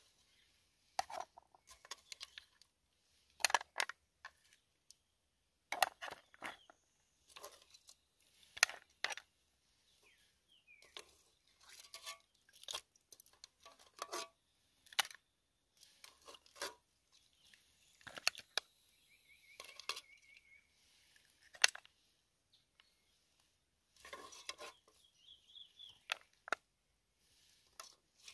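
Metal spoon clinking and scraping against a metal cooking pot, with cooked mussel shells clattering onto a plate as they are served. The sound comes as irregular clicks and knocks.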